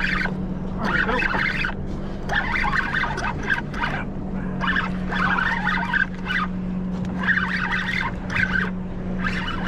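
Spinning reel being cranked to bring in a hooked fish, its gears whirring in short spurts about once a second, over a steady low hum.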